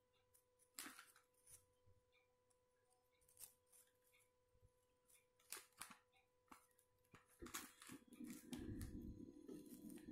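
Faint crisp snaps and clicks as a butter cookie is broken apart between the fingers, a handful of separate cracks spread over several seconds. About three quarters of the way in a low, rough rumble of handling noise comes in.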